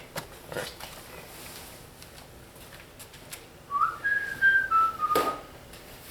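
A person whistling a few notes in the second half, a quick upward slide followed by held notes stepping down. A few short knocks are heard around the whistling, one right as it ends.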